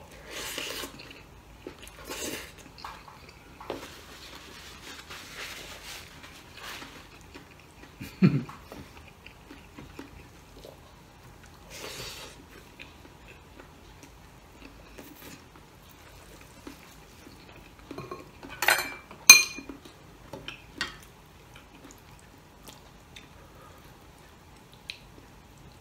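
Close-up eating sounds of a man eating with his hands, with soft scattered mouth and handling noises. There is a dull thump about 8 seconds in, and two sharp ringing metal clinks a little past the middle from utensils against the dishes or the stainless steel soup pot.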